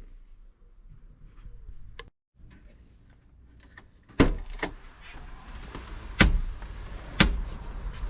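A few sharp clunks: loud ones about four, six and seven seconds in, among fainter knocks, over a faint steady background noise that sets in with the first.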